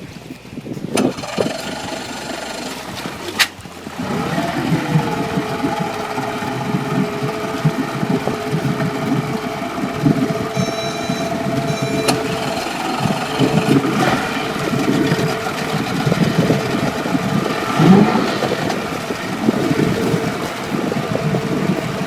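Boat engine picking up about four seconds in with a short rise in pitch, then running at a steady speed, with wind rushing on the microphone.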